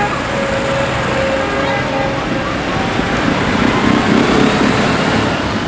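Tractor engines running as tractors drive past, a steady mechanical rumble.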